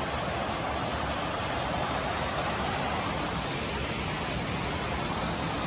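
Fountain jets splashing: a steady, even rush of falling water.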